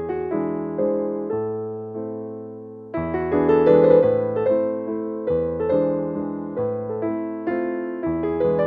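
Background piano music: a gentle melody over chords, each note struck and fading away.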